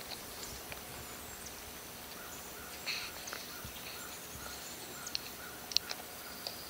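Quiet summer field ambience: a steady background of insects with a few short, scattered bird chirps.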